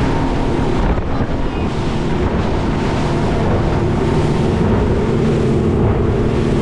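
Boat engine running steadily under way, with wind buffeting the microphone and water rushing past the hull.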